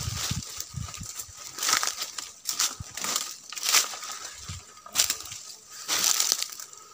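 Dry leaves and brush rustling and crunching in irregular bursts as a person pushes on foot through forest undergrowth, with a faint steady tone underneath.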